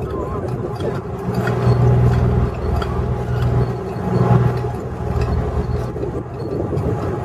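Automatic squid-jigging machines hauling lines over their rollers on a squid-jigging boat: a steady mechanical hum with low held tones that swells louder twice, with faint clicking.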